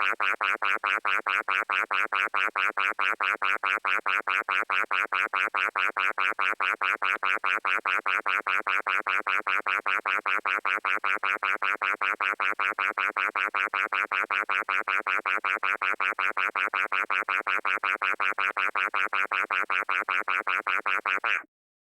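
An electronic pitched tone pulsing rapidly and evenly, about four or five pulses a second at an unchanging pitch and level, cutting off suddenly near the end.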